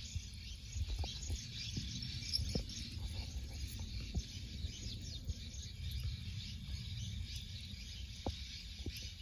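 Outdoor field ambience: insects and birds chirping faintly and steadily, over a low rumble on the microphone, with a few soft clicks.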